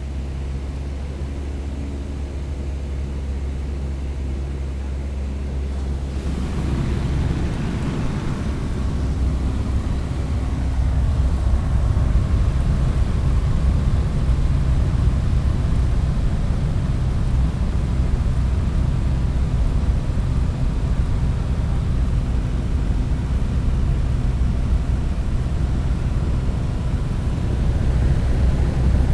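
Propeller airplane engine running steadily, heard from inside the cabin with a window open, a low drone with rushing air noise. About six seconds in the sound grows louder and rougher as more wind rush comes in.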